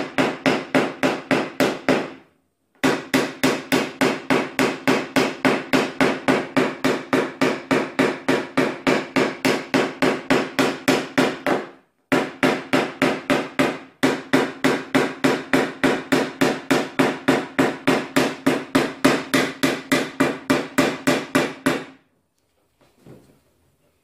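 Rapid, even tapping of a PDR hammer on a knockdown tool against the high spots of a car door's steel skin, about five or six taps a second, each with a short metallic ring. The bumps and ridges around a sharp crease are being knocked down to flatten the panel. The tapping pauses briefly about two seconds in and twice near the middle, and stops about two seconds before the end.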